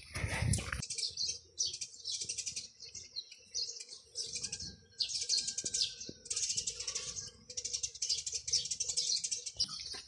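Small birds chirping in a run of short, high bursts, roughly one a second, over a faint steady hum. A brief shuffling noise fills the first second.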